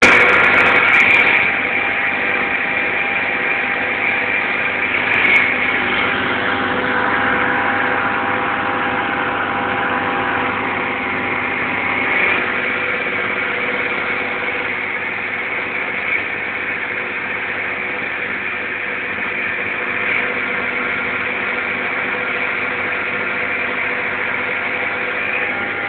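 A small boat's motor running steadily at an even speed.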